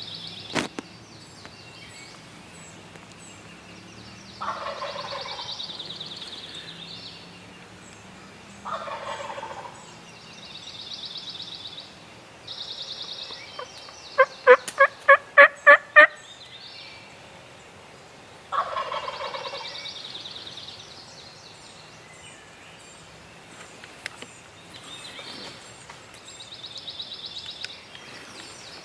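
Wild turkey gobbler gobbling three times, each gobble a rattling call of about a second and a half. In the middle comes a quick run of about seven sharp turkey yelps, the loudest sound, while small songbirds trill in the background.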